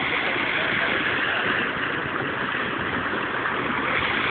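Muddy storm runoff rushing in a swollen stream: a steady, even rush of flowing water.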